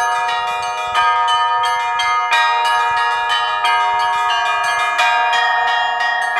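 Russian Orthodox chapel bells rung by a bell-ringer in a zvon: quick strikes of several bells of different pitch ringing over one another, with a heavier stroke every second or so.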